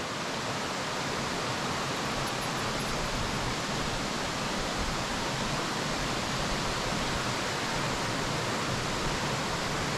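Green Cove Creek's water rushing steadily, running well after overnight rain.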